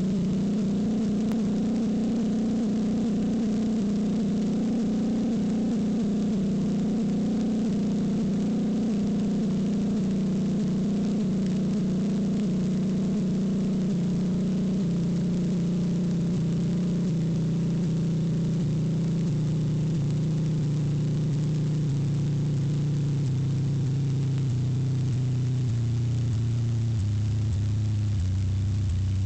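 A steady, loud hum at a single pitch, which sinks slowly over the last third or so.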